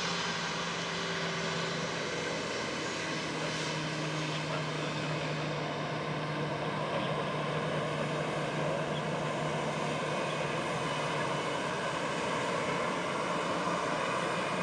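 Airbus A321-211's twin CFM56-5B jet engines running steadily at low power as the airliner rolls along the ground: a constant low hum under several high, steady whining tones.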